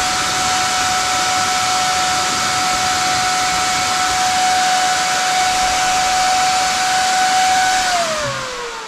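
24-volt BYD battery-pack cooling fan running at about 19 volts: a steady rush of air with a whining blade tone. About eight seconds in the power is cut and the fan spins down, its whine falling in pitch as the air noise fades.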